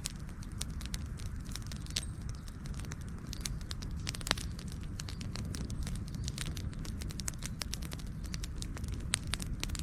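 Campfire crackling: burning wood snaps and pops many times, irregularly, over a steady low rumble. One louder pop comes about four seconds in.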